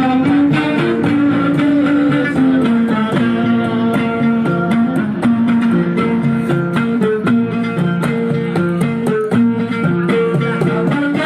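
Background music led by guitar: plucked and strummed guitar notes over a bass line, with a steady beat.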